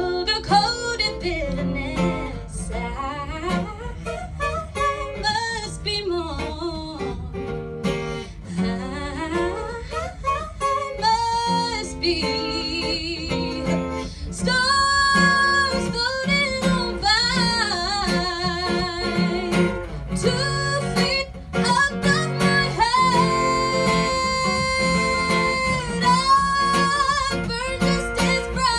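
A woman singing into a microphone, accompanied by an acoustic guitar; in the second half she holds long notes with vibrato.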